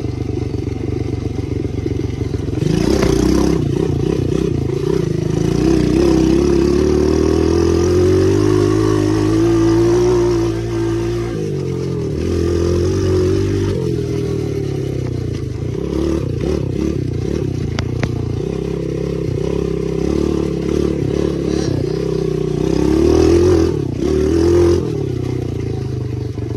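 Small dirt bike engine running as it is ridden, revving up and easing off over and over. The revs surge loudest about three seconds in, again from about six to ten seconds, and briefly near the end.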